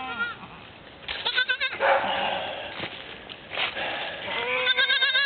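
Goats bleating: a short quavering bleat about a second in, then a long wavering bleat starting near the end.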